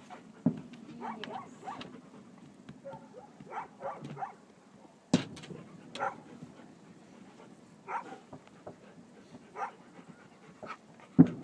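A dog making several short, high whines, with sharp firework bangs in between; the loudest bang comes near the end.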